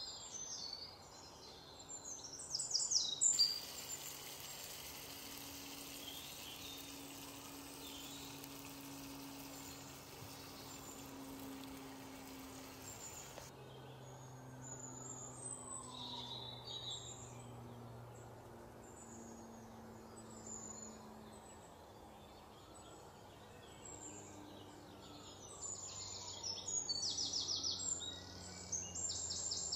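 Birds chirping, with quick high trills a few seconds in and again near the end.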